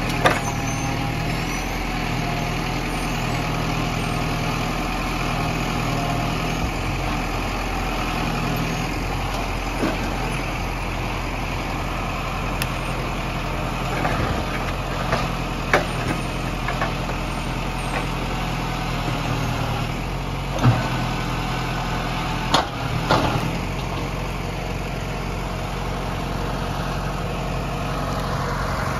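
Zetor Forterra 140 HSX tractor's diesel engine running steadily, driving the hydraulic crane of a forestry trailer. A few sharp knocks come as the crane handles and loads logs, the loudest about a second in and about 21 seconds in.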